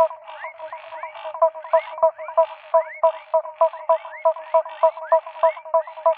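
A chorus of frogs calling: short, clear notes repeating about three times a second, mixed with quick upward-sliding calls. It is a breeding chorus set off by rain after a long dry spell.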